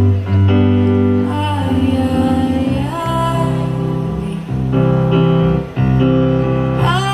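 Live pop music: a woman sings held, sliding notes over a band's steady low bass notes.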